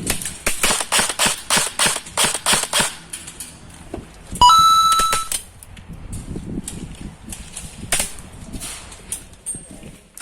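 Airsoft guns firing: a quick string of about a dozen shots, roughly five a second, over the first three seconds, then scattered single shots. About four and a half seconds in, a loud high tone sounds briefly and steps up in pitch.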